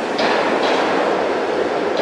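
A light-rail trolley car running into an underground tunnel station, with a steady rumble of wheels on rail and a few sharp clacks as the wheels cross rail joints.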